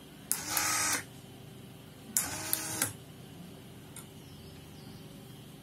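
Small DC geared motor (30 RPM) of a homemade dispenser running twice, each time for under a second, as it drives the pump arm down and then back up. Each run starts or ends with sharp clicks as the limit switches break the circuit.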